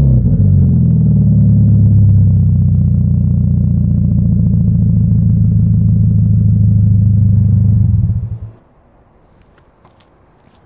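2015 Subaru BRZ's 2.0-litre flat-four engine idling steadily through an aftermarket catback exhaust, settling down from a rev at the start. The note stops abruptly about eight seconds in, leaving quiet with a few faint clicks.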